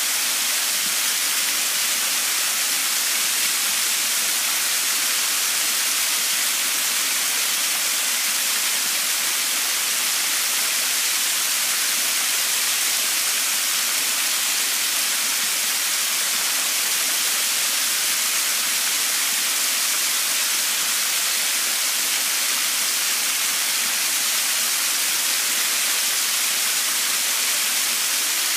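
A small creek waterfall: water spilling in thin streams over a rock ledge and splashing onto the rocks below. It makes a steady, unbroken hiss, bright and high, with no deep rumble.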